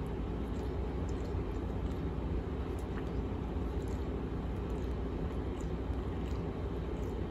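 A cat purring steadily close to the microphone, a continuous low rumble, with faint wet ticks from the cat's tongue as it licks a kitten.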